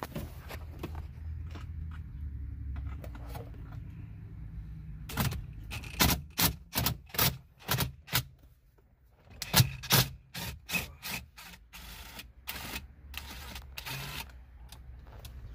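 Socket ratchet on a long extension clicking in two runs of sharp, even clicks, about three a second, as a screw is backed out of the dashboard. A low rumble comes before the first run.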